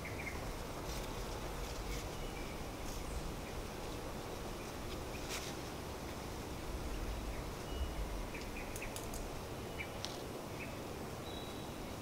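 Wind blowing outdoors, a steady low rumble on the microphone that swells in a gust about seven seconds in. Scattered short, high bird chirps sound over it.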